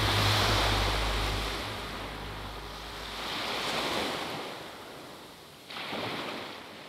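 Small waves breaking and washing up a sandy beach: a steady hiss of surf that swells a few seconds in and rises again suddenly near the end. The last low notes of background music fade out in the first second or two.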